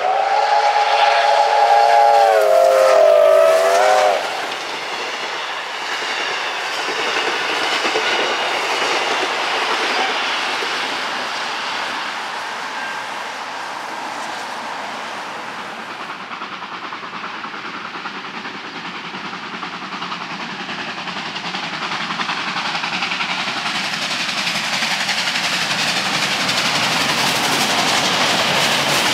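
R class steam locomotive's whistle blowing one long blast of about four seconds, several notes sounding at once, then the steady rush of the steam train running past with its wheels clicking over the rail joints.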